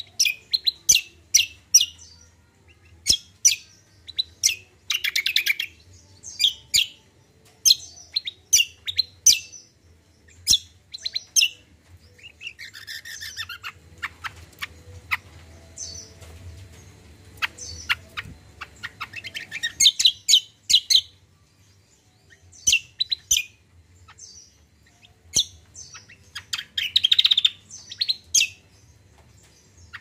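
Caged kacial songbird singing: a rapid run of short, sharp chirps, broken by a few louder trilled phrases, under a faint steady low hum.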